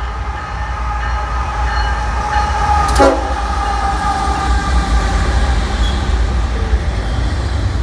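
BNSF freight locomotives passing with a heavy low rumble of engines and wheels, while the air horn holds a steady multi-note chord that thins out near the end. A sharp knock cuts through about three seconds in, as the locomotives go by.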